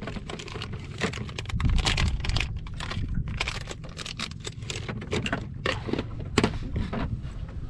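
Irregular small clicks and rattles of fishing tackle being handled while a micro jig is swapped for another, over a steady low rumble.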